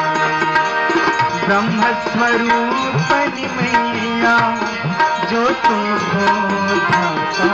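Indian music led by tabla drumming, the low drum's notes bending in pitch, over held melodic notes.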